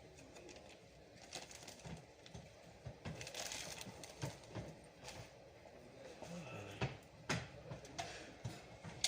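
Scattered light clicks and knocks of computer hardware being handled, with a couple of sharper knocks about seven seconds in.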